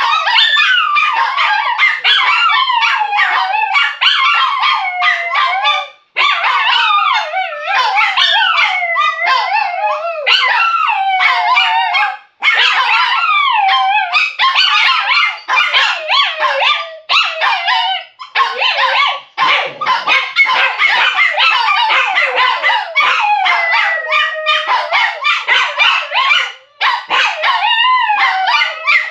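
Shih Tzu puppies howling at being left alone: several high, wavering howls overlapping, broken up with barks and yips, with brief pauses a few times.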